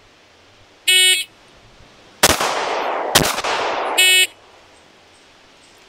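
An electronic shot timer beeps the start signal about a second in. A CZ 75 9mm pistol then fires two shots about a second apart, each followed by a long ringing echo. A second timer beep comes about three seconds after the first, at the end of the 3-second time limit.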